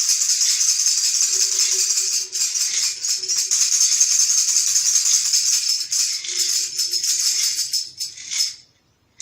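Improvised imitation of rain: tambourines and other shaken objects make a dense, steady rattling hiss, with a low hollow tone from a blown bottle coming and going twice, and the whole thing dies away about eight seconds in.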